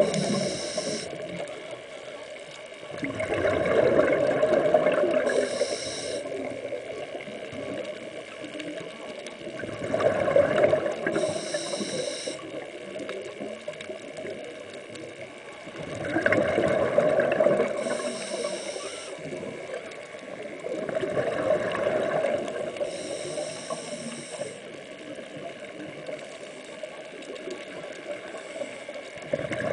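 Scuba diver breathing through a regulator underwater. The cycle repeats about every six seconds: a short hissing inhale, then a longer rush of exhaled bubbles.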